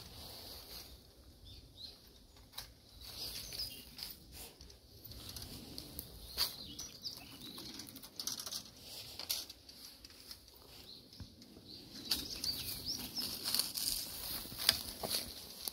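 A long-handled pole pruner working among the branches of a lacquer tree: rustling leaves and twigs, with irregular sharp clicks as the pruner head knocks and snips the shoots.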